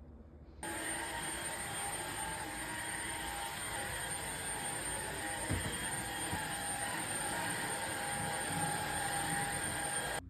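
Cordless vacuum cleaner switching on about half a second in and running steadily, a motor whine over the rush of air, then cutting off suddenly at the end. A single light knock comes midway.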